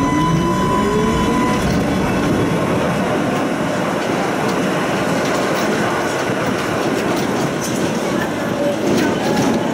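Tram running along the track, heard from inside the passenger car: a steady rumble and rattle of steel wheels on rails. A thin high tone fades out about a second and a half in.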